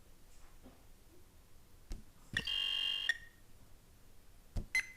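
A timer sounds one steady electronic beep tone lasting under a second, about halfway through. It is preceded by a couple of light knocks from handling.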